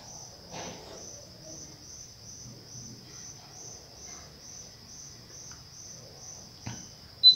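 Insect chirping steadily: a high-pitched chirp pulsing evenly a few times a second. A faint click comes near the end.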